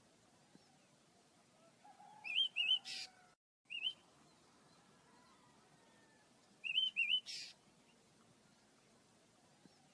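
Pet birds chirping: short, rising-and-falling chirps that come in quick pairs, a few seconds apart, with a brief rustling burst just after each pair.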